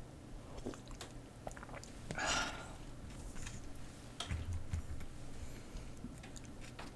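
Someone eating pho: chewing, with small clicks of a wooden spoon and chopsticks against the bowls and one louder slurp about two seconds in.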